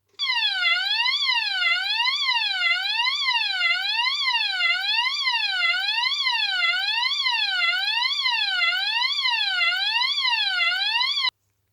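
AE&T T105N fire alarm sounder playing its tone number 30: a loud electronic tone sweeping evenly up and down about once a second, starting and cutting off abruptly.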